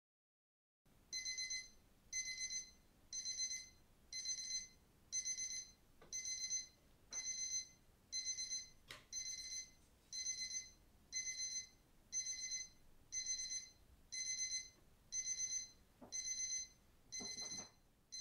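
Digital timer alarm beeping as the countdown runs out: a high electronic beep, itself a quick run of pips, repeating about once a second, starting about a second in. It signals the end of the reading session.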